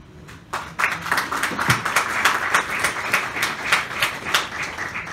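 A small audience applauding, starting about half a second in and continuing as dense, irregular clapping.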